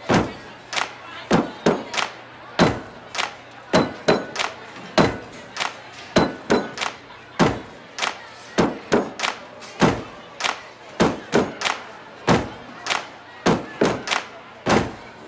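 An uneven run of sharp thuds and knocks, two or three a second, each ringing on briefly.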